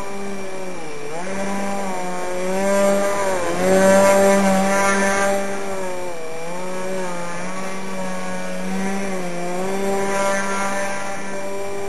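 Small RC foam 3D plane hovering nose-up on its propeller, the motor and propeller buzzing steadily and dipping and rising in pitch every few seconds as the throttle is worked to hold the hover. It is loudest and highest about three to five seconds in.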